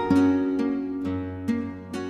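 Background music: a plucked-string instrumental, a few notes struck and left ringing as they fade.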